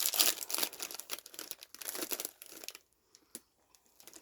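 Plastic snack bag crinkling and tearing open as it is handled. The crackling is dense for nearly three seconds, then stops, leaving a couple of faint rustles.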